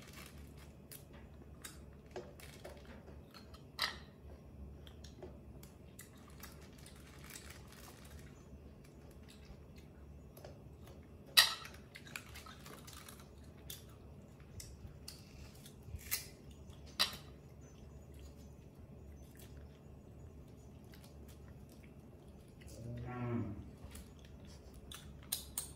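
Scattered small clicks and taps as fruit is cut with a knife and a baby macaque handles and eats the slices, over a faint steady room hum. A short low murmur comes about 23 seconds in.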